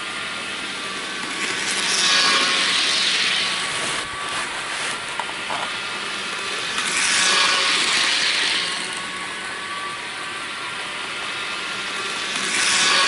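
Bachmann HO scale Challenger model train running around its track loop: a steady whir and rattle of the motor and wheels on the rails, swelling louder about every five seconds as the train passes close by.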